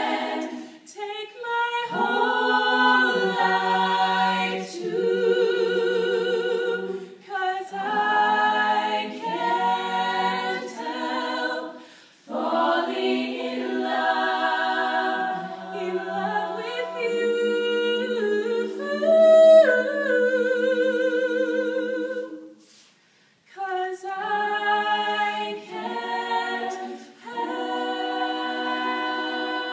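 An a cappella vocal group singing in harmony, a lead voice over backing voices, in phrases with vibrato. The singing breaks off briefly about three quarters of the way through, then resumes.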